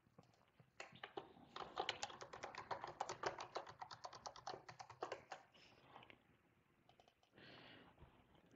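Computer keyboard typing: a fast run of keystrokes lasting about four seconds, followed by a few scattered key presses, all faint.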